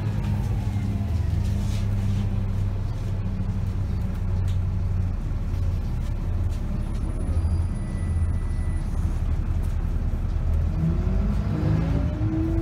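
A Volvo B7RLE bus's diesel engine and ZF automatic gearbox heard from inside the cabin: a steady low drone, with a falling whine just at the start and rising whines near the end as it speeds up again.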